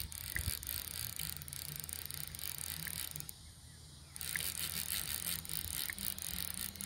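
Fly reel's click-and-pawl ratchet clattering rapidly while a hooked tarpon is played on the line. It goes in two long spells, with a pause of about a second roughly three seconds in.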